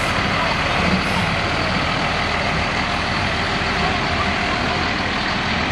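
Fire department tanker truck's engine running steadily as the heavy truck rolls slowly past close by.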